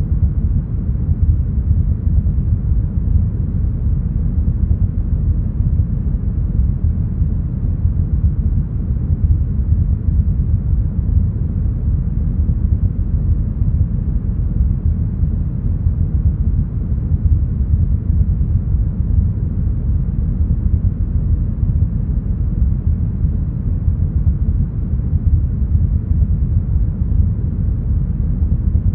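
Steady, deep brown noise, a smoothed synthetic hiss that is strongest in the bass and has almost nothing above the mid-treble, unchanging throughout.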